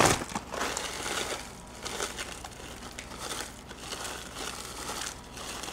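Soft, irregular crinkling and rustling as shredded coconut is added to cookie dough and worked in by hand.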